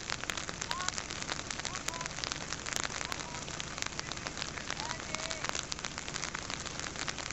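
Steady, dense patter of rain or sleet falling close to the microphone, with a few faint short rising notes now and then.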